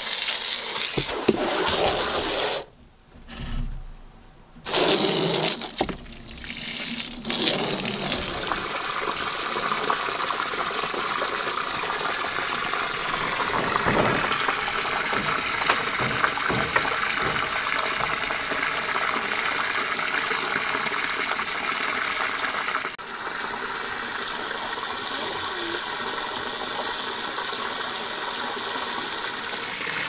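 Water spraying from a garden-hose spray nozzle into a black rubber tub. It cuts out about three seconds in, comes back in short bursts, and then settles into a steady rush of running water.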